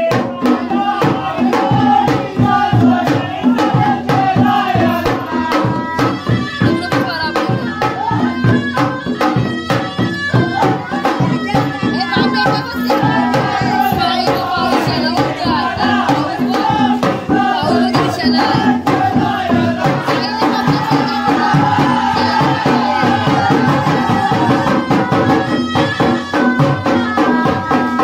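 Indian folk music with fast drumming and rattling percussion under a singing melody, playing without a break.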